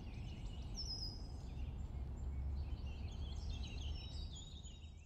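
Birds chirping and trilling in short calls over a low steady rumble of outdoor ambience, beginning to fade out near the end.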